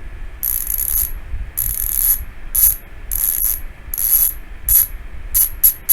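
Koozer XM490 six-pawl hub's freehub spun by hand in a series of short turns, the pawls giving a fast ratcheting buzz in each burst. The bursts get shorter and quicker near the end.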